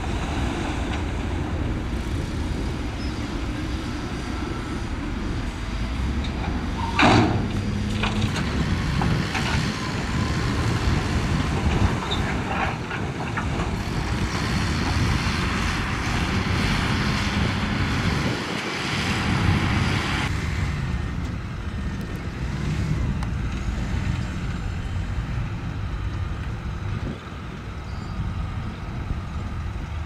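Heavy diesel earthmoving machinery running steadily, with a sharp loud bang about seven seconds in and a few lighter knocks a few seconds later.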